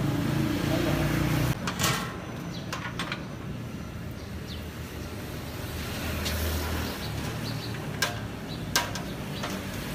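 Clanks and knocks of a large steel cooking pot being handled and set down on a cart-mounted stove: a handful of sharp knocks spread over several seconds, over a low traffic rumble.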